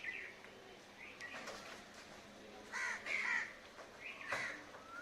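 Crows cawing, a series of harsh caws with the loudest cluster about three seconds in.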